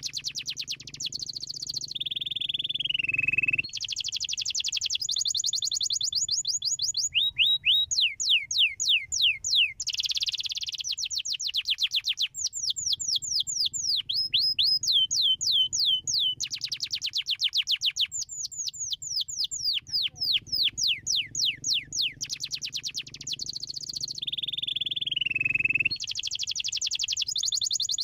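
Domestic canary singing continuously: fast trills of repeated downward-sweeping high notes, switching to a new trill every second or two, with a longer sliding note about two seconds in and again near the end.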